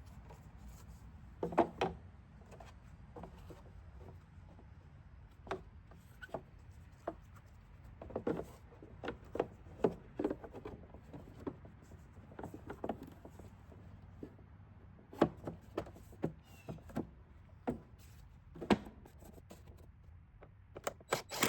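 Irregular clicks, taps and rubbing from the air filter housing and its parts being handled as the filter is changed, with a few sharper knocks in clusters.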